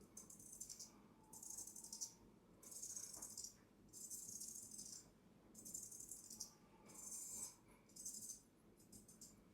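Straight razor scraping across skin and stubble in a steady rhythm of short, soft, high-pitched rasping strokes, about one a second.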